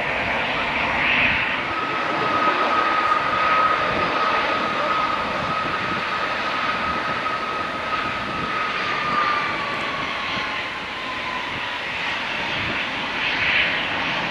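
Airbus A321-211's CFM56 turbofan engines running at taxi power as the airliner rolls along the taxiway: a steady jet rush with a high whine that comes in about two seconds in, holds, then slides slightly lower and fades.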